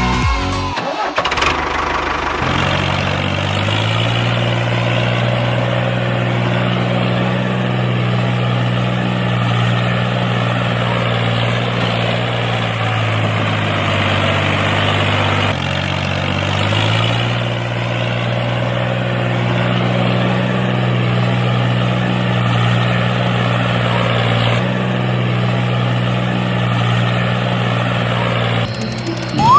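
Tractor engine starting about a second in and then running steadily, its pitch dipping for a few seconds midway and rising again.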